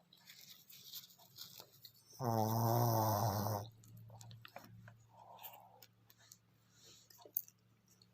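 Sleeping pug snoring: one loud, pitched snore about two seconds in that lasts about a second and a half, with soft snuffling breaths before and after it.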